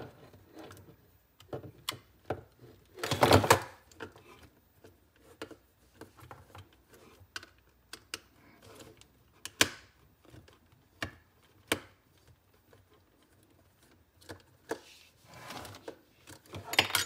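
Scattered small clicks and taps of plastic and metal as a Soundcore Life Q20 headphone earcup is handled and its tiny screws are worked with a small screwdriver, with a louder clunk about three seconds in.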